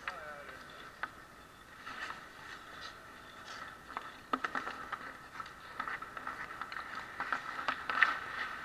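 Ice hockey play close to the goal: skates scraping the ice and sticks clicking, with scattered sharp taps over a faint steady arena background.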